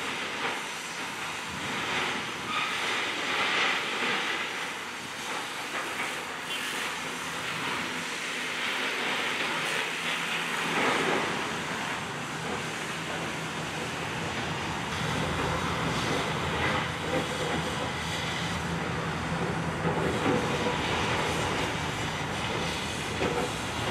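Cutting torch hissing steadily as it cuts through the steel wall of a smokestack. About halfway through, a low steady machine hum joins it.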